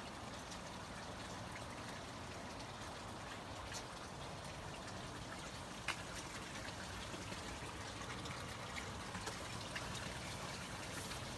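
Faint steady trickling water with scattered light drips and ticks; one sharper tick about six seconds in.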